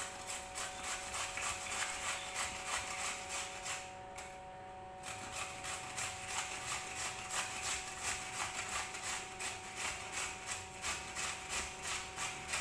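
Raw potato being grated on a stainless-steel box grater: a steady run of rasping strokes, about three a second, with a short break about four seconds in.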